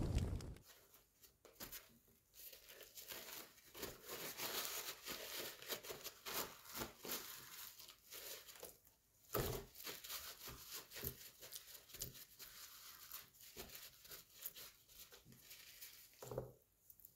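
Paper towel rustling and crinkling as it is dabbed over the skin of a raw whole chicken to pat it dry: faint, irregular soft rustles and small clicks. A fire's crackling fades out in the first half second.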